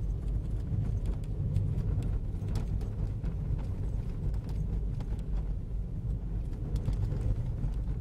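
Car driving on a snow-covered road, heard from inside the cabin: a steady low rumble of engine and tyres, with a few faint scattered clicks.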